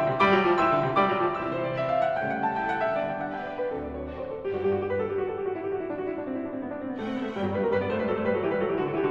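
Instrumental background music led by piano, a slow run of separate notes that thins out in the middle and fills out again.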